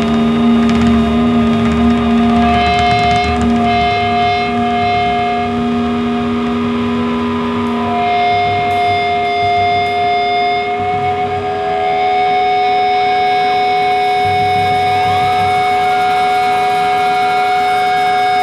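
Live post-rock band in a slow ambient passage: sustained guitar and synth notes drone over one steady low tone, with no drums. The held notes change twice, and a slow rising glide comes near the end.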